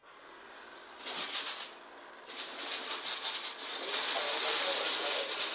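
Prembot P3 robot vacuum running its suction and brushes over red beans on a desktop, the hard beans rattling as they are swept and sucked up. The sound starts abruptly, grows louder about a second in, dips briefly, then runs loud and steady.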